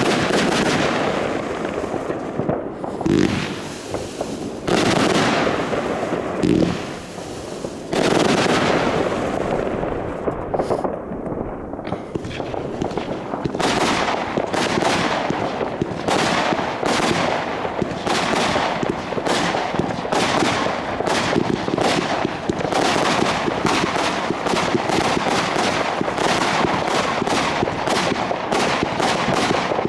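Consumer fireworks going off: bangs and crackling, growing into a dense, rapid run of sharp shots from about halfway on.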